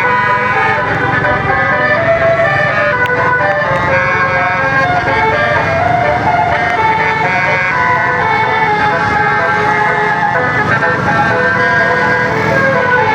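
Bus 'telolet' horn: a set of air horns playing a melody of stepped, held tones, over a steady low rumble of engine and traffic.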